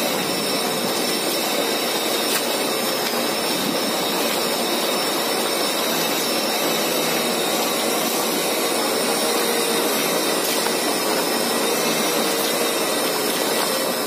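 PortableWash portable bucket washing machine running steadily, its motor humming as it churns soapy water in the bucket.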